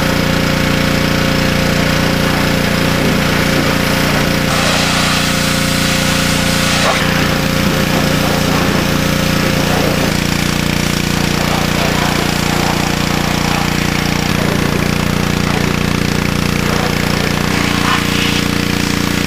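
Gas-engine pressure washer running steadily under load, with the hiss of its water jet spraying the car body's sheet metal; the spray hiss grows louder for a few seconds about five seconds in.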